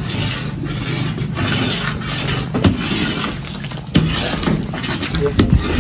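Long wooden paddle stirring a large metal pot of boiling brinjal-and-potato curry, the liquid sloshing in regular strokes about every one and a half seconds, with a few sharp knocks. It is stirred to keep the curry from settling and sticking at the bottom.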